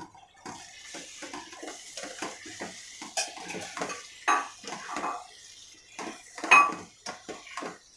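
A spatula stirring soya chunks into thick masala in a non-stick pot: irregular scrapes and knocks against the pan, with sharper knocks about four and six and a half seconds in.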